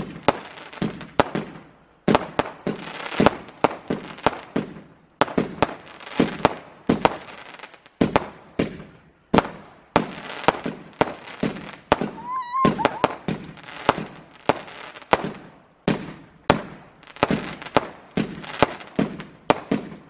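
Aerial fireworks going off in quick succession: many sharp bangs, often several in a row, with crackling between them.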